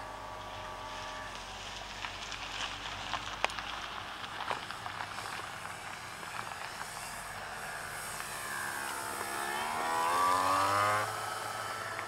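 Electric motor of a scratch-built Shorts Mussel model aircraft in flight, its loose bearing giving it an unusual rough sound. The motor note fades about a second in, a few sharp clicks follow, then the whine rises in pitch and grows loud as the model passes close, cutting off shortly before the end.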